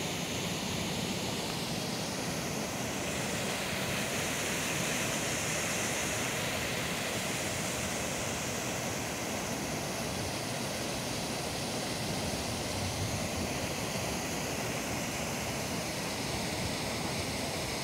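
Steady rush of river water at a weir, an even hiss-like roar with no breaks.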